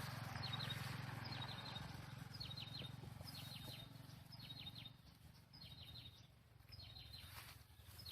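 A small bird calling over and over, about once a second: each call a quick high falling note followed by a short rapid trill of three or four ticks. A faint low hum underneath fades out about halfway through.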